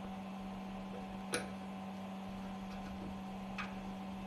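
Two short metal clicks as the air piston and spring are worked into the upper housing of a puncture valve, the louder one about a second in and a fainter one near the end, over a steady low hum.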